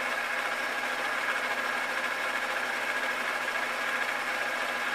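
Metal lathe running steadily, spinning a steel bolt in its four-jaw chuck for center drilling: a steady machine noise with a high steady tone, starting abruptly.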